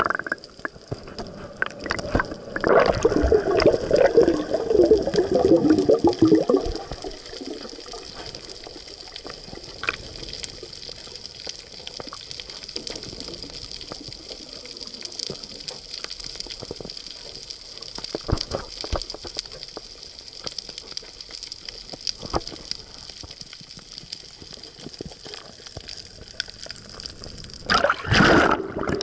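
Water sounds picked up by a camera held underwater: a loud bubbling gurgle for several seconds a few seconds in, then a steady hiss with scattered faint clicks. Near the end comes a short burst of splashing as the camera breaks the surface.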